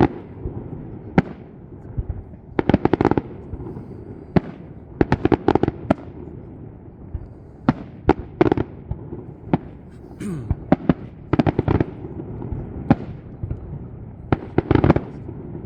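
Aerial fireworks display: shells bursting with sharp bangs, many coming in quick clusters of several reports every two or three seconds, over a steady background rumble.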